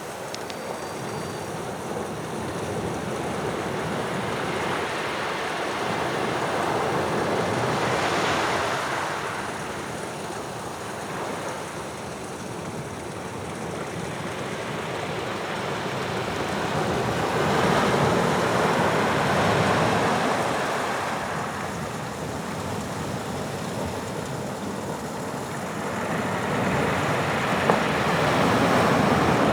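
Atlantic waves breaking on the shore, the surf swelling and falling back three times, roughly ten seconds apart.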